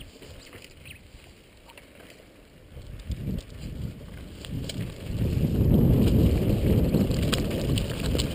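Wind buffeting the microphone of a camera on a downhill mountain bike, with tyres rumbling over loose dirt and gravel and scattered light rattling clicks from the bike. The rumble swells about three seconds in and turns loud about five seconds in.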